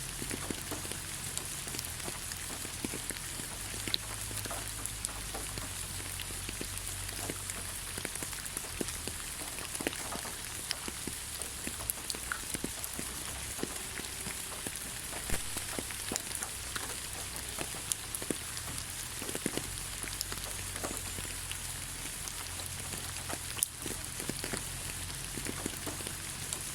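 Rain falling steadily on the ground: an even hiss with many separate drops pattering across it.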